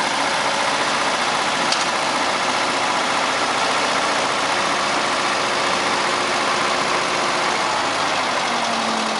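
Engine of a Case tracked trencher-backhoe running steadily.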